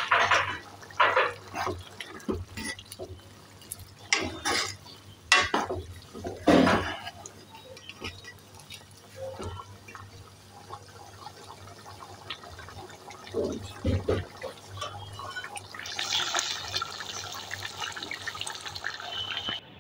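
Thick chickpea curry (ghugni) boiling in a pan: bubbles popping one by one over the first several seconds, becoming a denser, steadier bubbling near the end.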